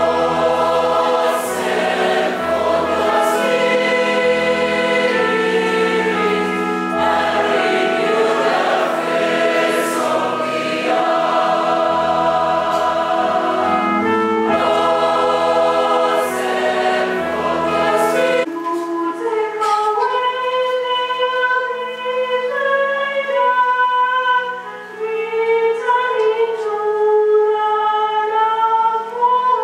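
Church choir singing a gospel-style hymn in parts, with deep held bass notes under the voices. About two-thirds of the way through, the full sound drops away and a single melodic voice line carries on over held lower notes.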